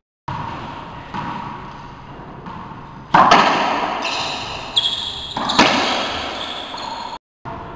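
Racquetball rally: the rubber ball cracking off racquets and the court walls, each hit echoing in the enclosed court. Quieter hits come first, then three loud ones a little past halfway.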